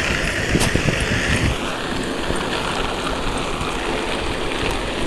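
Rollerblade wheels rolling on pavement while being towed by a dog, with wind buffeting the microphone.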